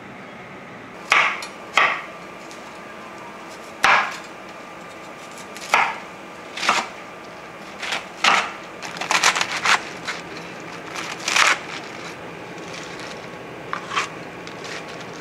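Kitchen knife cutting napa cabbage on a wooden cutting board: about a dozen separate sharp knocks at irregular intervals, with a quick run of cuts in the middle.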